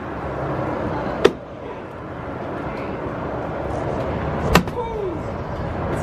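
Two sharp knocks about three seconds apart, one a little over a second in and one past the middle, from bean bags landing on a cornhole board, over a steady outdoor background hum.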